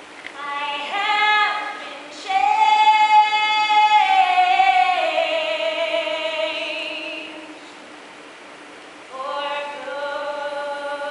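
A woman singing solo with no accompaniment. She sings a short phrase, then a long held note that steps down in pitch and wavers with vibrato. After a brief pause, another long note begins near the end.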